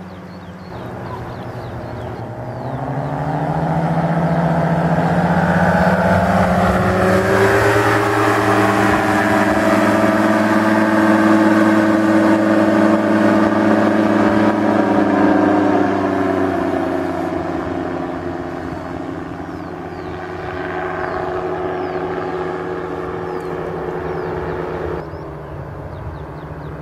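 Paramotor trike engine droning as the craft flies past low: it grows louder over a few seconds, its pitch drops as it passes, then it fades, with an abrupt drop in level near the end.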